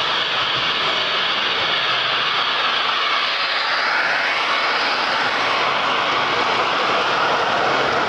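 Large-scale model train, an Amtrak-liveried diesel locomotive pulling bilevel passenger cars, rolling past close by: a steady whirring of motors and wheels on the rails, with a pitch dip as the locomotive goes by about three to four seconds in.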